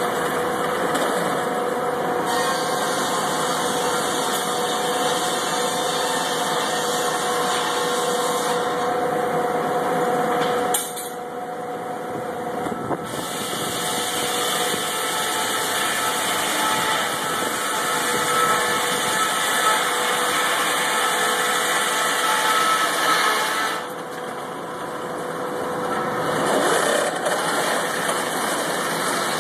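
A large circular headsaw in a sawmill running steadily with a constant hum, its pitch and level shifting as it is fed through a log on the carriage. The sound drops briefly twice, about a third of the way in and again near two-thirds.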